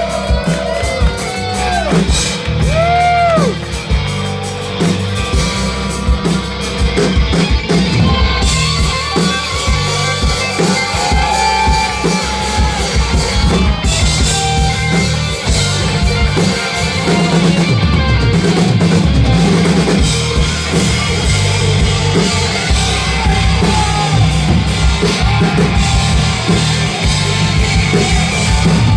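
A rock band playing live and loud, with drum kit, bass and electric guitar.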